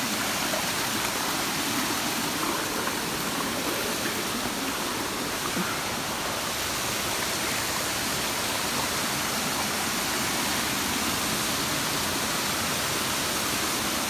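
Small waterfall and shallow stream running over rocks: a steady rush of water.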